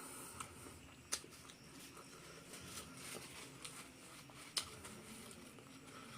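Close-miked eating sounds: soft chewing and mouth clicks, with two sharper clicks, one about a second in and one about four and a half seconds in.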